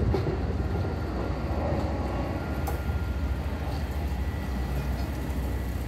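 Plasser & Theurer track maintenance machine running as it rolls past on the rails, a steady low rumble that slowly fades as it moves away.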